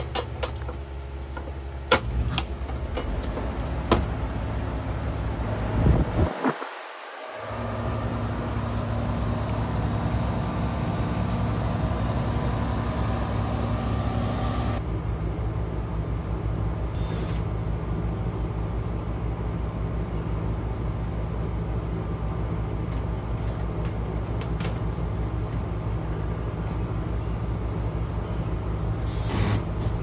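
Steady hum of a Rheem outdoor air-conditioning unit running, a few sharp clicks in the first seconds and a brief dip about seven seconds in. The unit is running on a newly fitted 45/10 microfarad dual run capacitor.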